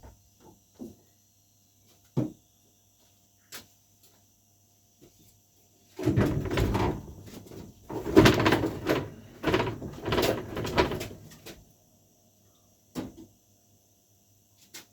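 A piano being moved across the floor. A few scattered knocks come first. About six seconds in, several pushes bring loud rumbling and bumping that last about five seconds, then one more knock.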